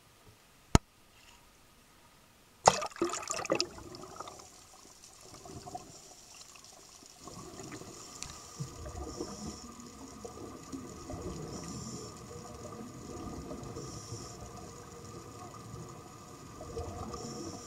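A sharp click, then a brief clattering splash as the camera goes under water, followed by muffled underwater water noise with gurgling and bubbling.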